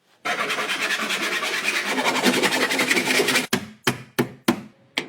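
A rapid, continuous rasping scrape for about three seconds, like something being rubbed or filed, stopping abruptly and followed by five sharp knocks in quick succession.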